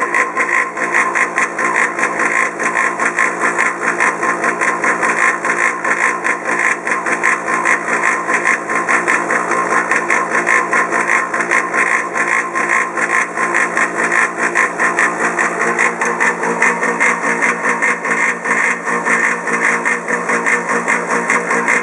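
Polaris PB4-60Q pool-cleaner booster pump running with a loud, steady mechanical noise: a rough, fast-pulsing sound with a steady whine in it. The pump is a 'quiet' model that became incredibly loud after only a few years, a sign that something in it is failing.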